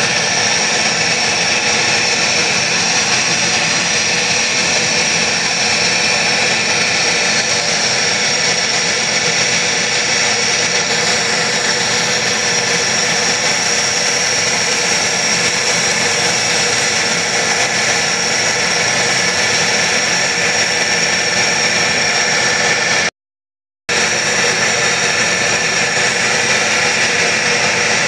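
Gas preheating burner for an aluminothermic (thermite) rail weld, burning with a steady rush as it heats the rail ends inside the mould. A thin, high, steady whistle sits over the rush. The sound cuts out for a moment near the end.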